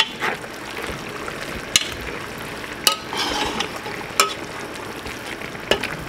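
A metal spoon stirs collard greens from the bottom of a simmering pot over a steady sizzle, with several sharp clicks as the spoon knocks against the pot.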